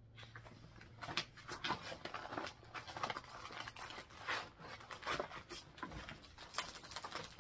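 Paper pattern charts and clear plastic sleeves rustling and crinkling as they are handled and sorted, in short irregular crackles.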